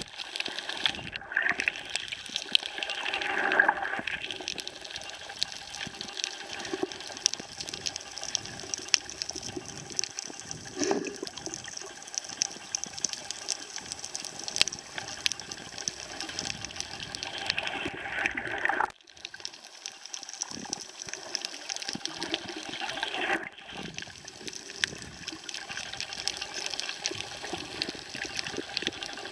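Underwater sound heard through a snorkeler's submerged camera: water rushing and sloshing around the housing, with a steady fine crackling throughout. Rising swooshes come a few seconds in, and again past the middle and later, as the camera moves through the water.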